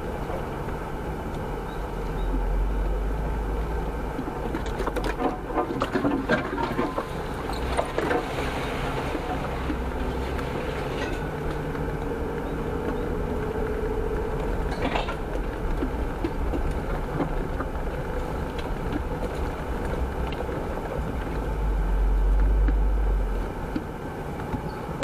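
A Jeep driving over rough ground: steady vehicle noise with scattered rattles and knocks, and a low rumble that swells twice.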